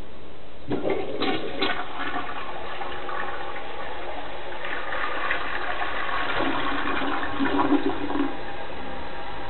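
A toilet flushing: the water rushes in suddenly about a second in, swirls down the bowl and stops about eight seconds in.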